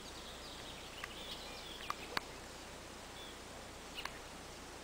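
Quiet outdoor background with a few faint, short bird-like chirps and a handful of soft clicks, the sharpest a little after two seconds in.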